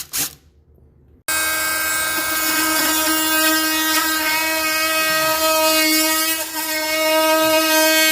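A cordless drill running steadily for about seven seconds, a high, even whine that starts and cuts off abruptly, most likely backing drywall screws out. A sharp knock comes just at the start.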